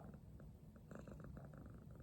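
Domestic cat purring faintly and steadily, a low rumble that could be taken for snoring.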